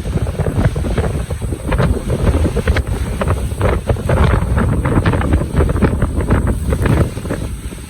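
Strong thunderstorm wind gusting and buffeting the microphone, a heavy rush that rises and falls, with many short sharp crackles through it.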